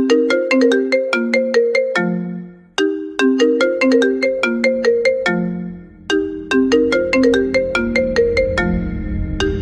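Trap-style ringtone music: a short, bright, marimba-like melody of struck notes stepping downward, repeating in phrases about every three seconds. A deep bass swell builds underneath near the end.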